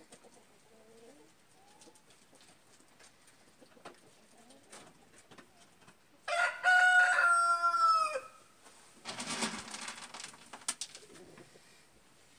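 A rooster crowing once, about six seconds in: a loud crow of about two seconds that holds its pitch and drops at the end. Faint hen clucking comes before it, and a short scuffling noise about a second after it.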